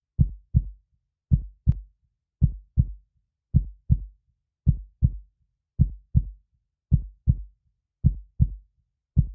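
Heartbeat sound effect: paired low lub-dub thumps, about one pair a second, in a slow even rhythm with silence between the beats.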